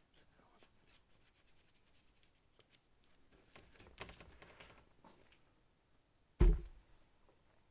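Paintbrush working paint onto paper, with faint scratchy strokes and dabs, then a single dull thump about six and a half seconds in.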